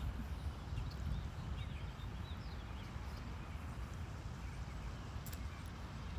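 Goslings peeping: faint, short high cheeps scattered over the first few seconds, above a steady low rumble.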